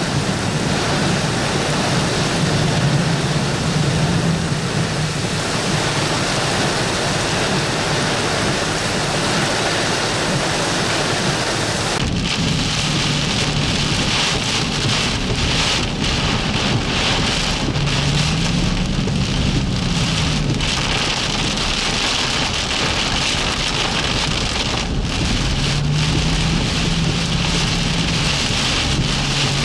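Torrential tropical-storm rain pouring down as a steady, heavy hiss. About twelve seconds in the sound changes abruptly to a deeper, rougher downpour.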